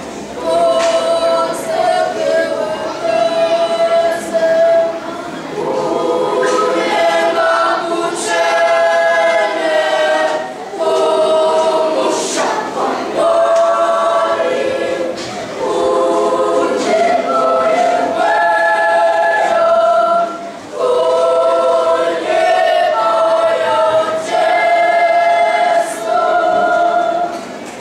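Children's choir singing unaccompanied, in phrases with short pauses between them.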